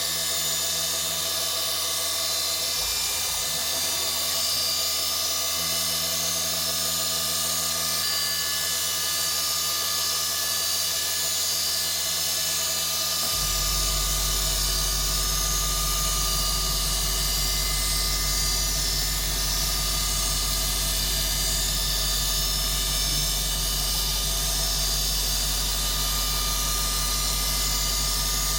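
DIY CNC milling machine running, its spindle giving a steady high whine made of many tones. About halfway through a strong low hum comes in and holds to the end.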